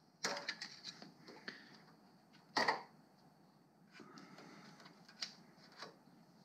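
Small clicks and scrapes of a screwdriver and loose parts being handled at a moped carburettor while the throttle cable is undone, with one louder clatter about two and a half seconds in.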